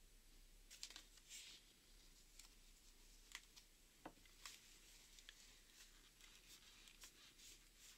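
Near silence with faint paper rustles and a few light taps and clicks as hands lay a paper strip onto a glued journal spine and press and fold the paper.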